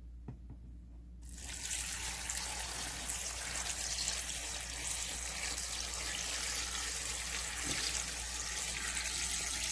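Red seasoned brine pouring in a steady, thick stream from a metal bowl onto cut radish and napa cabbage in a kimchi container, the pour starting about a second in.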